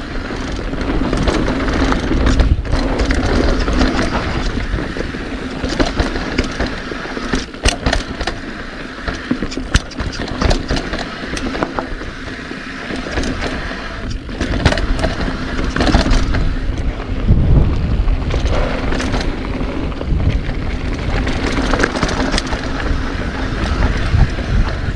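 Specialized Status 160 mountain bike descending a rough, chunky trail: tyres rumbling over dirt and rock, with a constant run of sharp clattering knocks from the bike. Wind rushes on the microphone, and a steady low buzz runs underneath.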